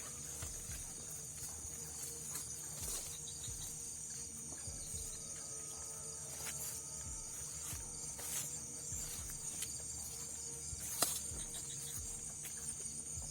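Steady high-pitched insect chorus, with faint irregular knocks and one sharp click about eleven seconds in.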